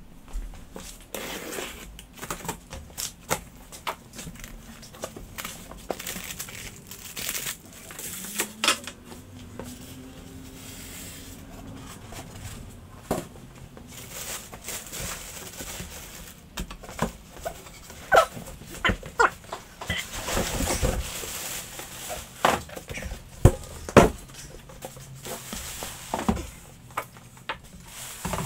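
A cardboard box being opened and a plastic-wrapped thickness planer unpacked: cardboard and plastic wrap rustling and crinkling, with many irregular knocks and clacks and a few louder thuds in the second half.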